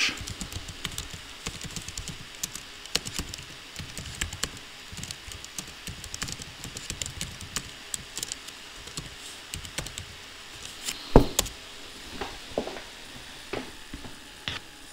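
Typing on a computer keyboard: a run of quick key clicks, then a louder single keystroke about eleven seconds in, followed by a few scattered clicks.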